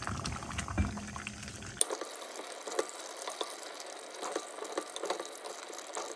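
A wooden spoon stirring a wet beef curry in a clay pot: the liquid squelches and sloshes, with scattered small clicks and pops from the spoon and the simmering juices. About two seconds in, the sound suddenly turns thinner as the low end drops away.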